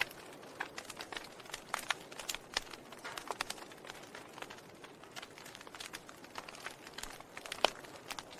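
Wood fire crackling in a fireplace: irregular sharp pops and snaps over a faint hiss, with one louder pop near the end.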